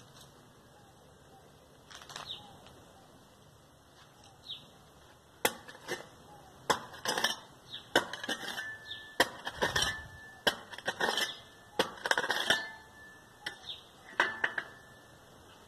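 Digging into hard, stony dirt with a hand tool. After a few quiet seconds comes an irregular run of sharp knocks, scrapes and clinks, a few of them leaving a brief metallic ring, until near the end.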